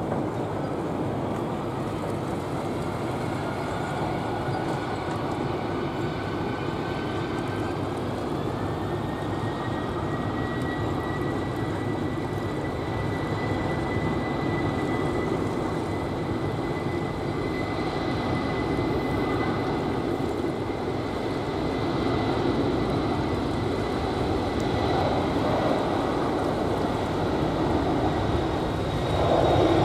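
Boeing 747-400's jet engines running on the runway: a steady rumble with a thin whine that rises in pitch a few seconds in and then holds steady, the engines spooling up.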